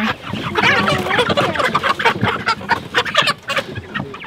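A crate of white broiler chickens clucking in many short, overlapping calls as a bird is caught and lifted out by hand for processing.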